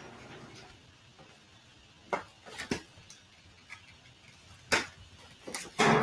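Scattered clicks and knocks of packaging being handled, several sharp taps about two seconds in and again near the end, the loudest just before it ends.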